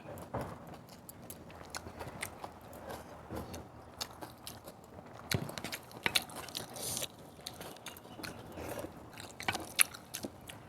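A person chewing and biting food close to the microphone: irregular wet mouth clicks and crunches, with clusters of sharper crunches around the middle and near the end.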